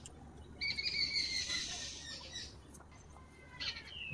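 A bird calling: one long call, falling slightly in pitch, lasting about two seconds, then a short falling chirp near the end. A few faint light clicks are heard alongside.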